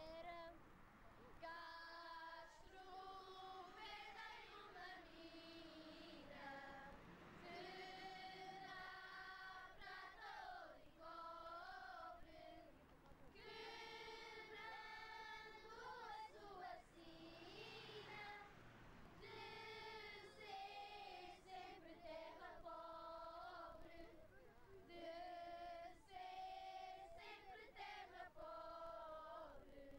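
Children's choir singing a cante alentejano song unaccompanied, in long held phrases with short breaks between them.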